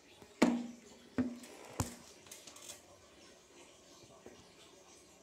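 Three sharp knocks of hard plastic on a wooden tabletop in the first two seconds, the first two with a short low ring, followed by a few faint clicks: handling of the plastic massage tool against the table.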